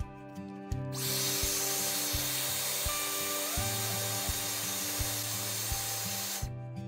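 Hair dryer blowing hot air onto an iPhone's back glass to soften its adhesive: a steady rushing hiss that starts about a second in and cuts off near the end. Background music with a steady beat plays underneath.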